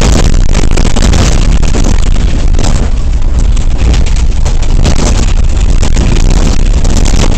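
City bus with faulty suspension driving, heard loud at the driver's seat: a constant heavy low rumble with dense, irregular rattling and knocking throughout. The knocking comes from the failed suspension.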